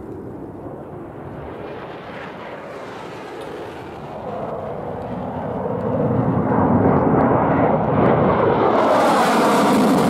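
Jet noise from Mirage-family fighters' turbojets at takeoff power. A steady distant rumble grows louder from about four seconds in and is loudest from about six seconds. Near the end a hissing edge joins it as a jet lifts off close by.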